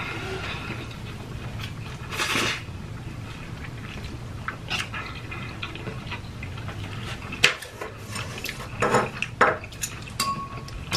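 Eating sounds: a fork and chopsticks clinking and scraping against a metal baking tray and bowl, with several sharp clicks, and short wet slurps of noodles between them.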